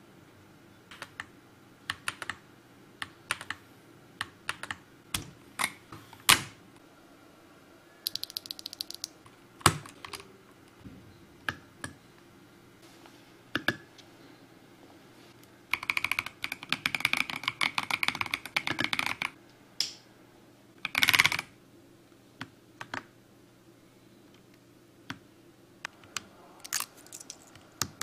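Keys of a CoolKiller CK98 gasket-mounted mechanical keyboard being pressed. Single scattered keystrokes are broken by a quick flurry about eight seconds in, several seconds of fast typing from about 16 to 19 seconds in, and a loud clustered strike about 21 seconds in.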